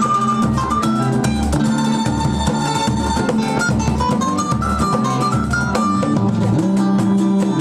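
Live samba-pagode without singing: acoustic guitar and other plucked strings over hand drums and a low bass-drum beat about twice a second.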